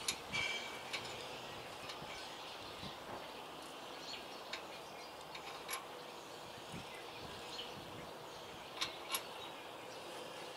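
Quiet outdoor background with a few scattered light, sharp clicks, two of them close together near the end.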